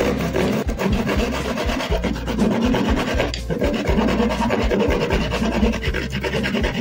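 Hacksaw blade sawing back and forth through the hard casing of a large multi-shot sky-shot firework, a steady run of rasping strokes.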